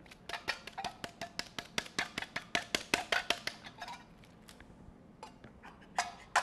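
Rapid knocking on an upturned metal can of beans, about five sharp knocks a second, to shake the beans loose into a bowl. The knocking stops about four seconds in, a few lighter knocks follow, and it starts again near the end.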